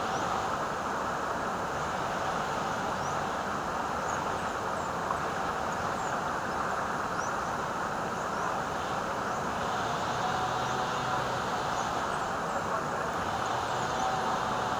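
Shallow river water rushing and splashing over rocks close to the microphone, a steady unbroken rush.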